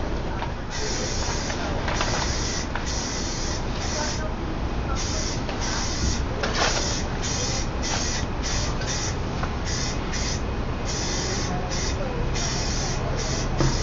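Aerosol spray-paint can hissing in many short bursts, each under a second with brief gaps, as coats of paint go onto a car body panel. A steady low rumble runs underneath.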